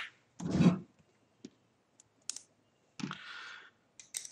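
Light clicks and handling noises as small metal and plastic mount parts are fitted together and a screwdriver is picked up off the tabletop. There is a soft knock about half a second in and a short scrape about three seconds in.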